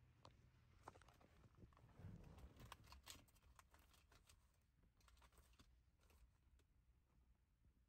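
Near silence: a low steady hum with faint scattered clicks, thickest a couple of seconds in.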